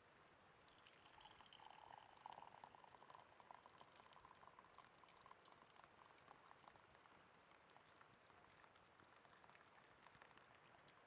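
Faint bubbling liquid sound that starts about a second in and dies away after about seven seconds, with light scattered clicks.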